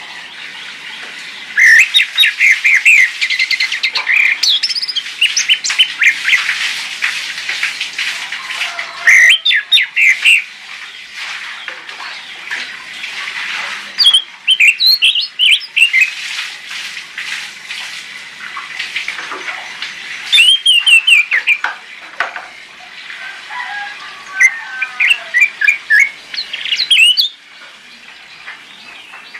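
Orange-headed thrush singing: about five loud phrases of quick, varied whistled notes, with a steady hiss between the phrases.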